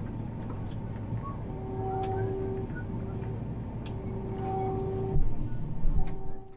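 Combine harvester running, heard as a steady low drone from inside the cab. A steady tone sounds on and off over it. A few heavy low bumps come near the end.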